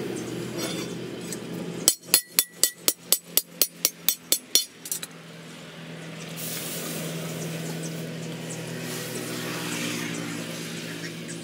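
A quick run of about a dozen ringing metal-on-metal strikes on a steel machete blade, about five a second for nearly three seconds. They are followed by a steady low hum with a faint hiss.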